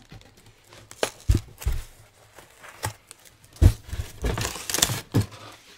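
Cardboard mailer being handled and opened: several knocks and thumps, then about a second of packing material crinkling and tearing near the end.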